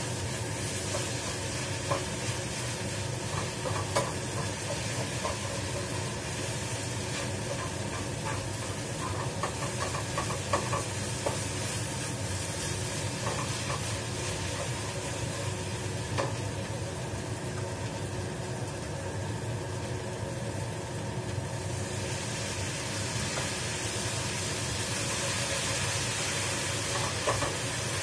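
Food sizzling in a frying pan on a gas stove while a spatula stirs and turns it, with a few sharp clicks of the spatula against the pan. A steady hum runs underneath.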